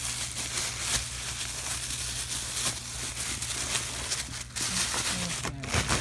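Thin plastic shopping bag crinkling and rustling continuously as hands dig through it, with brief dips in between.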